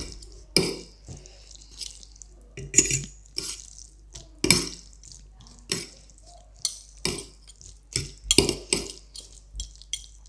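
Two metal forks clinking and scraping against a plate while sauced noodles are tossed and mixed. The clinks and scrapes are irregular, coming roughly one a second.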